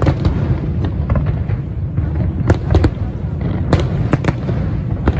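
Aerial fireworks display: a continuous low rumble of booming shells, with several separate sharp bangs cracking over it.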